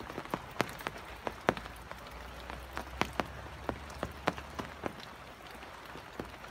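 Rain falling: scattered drops striking close by as irregular sharp taps, a few a second, over a soft steady patter.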